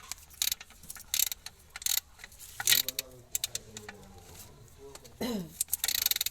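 Metal hand tools and parts clinking and scraping in a series of sharp, uneven clicks and short rasps, during clutch-plate work on a car.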